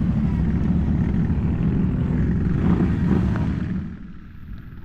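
ATV engine running under throttle, louder around three seconds in, then falling off sharply just before four seconds in.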